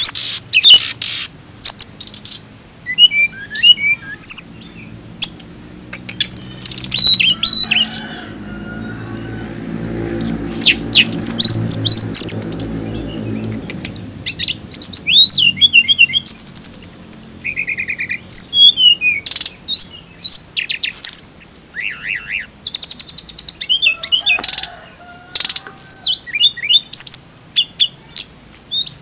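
Hill blue flycatcher singing: quick, varied phrases of clear whistles that glide up and down, mixed with fast trills, in bursts with short pauses.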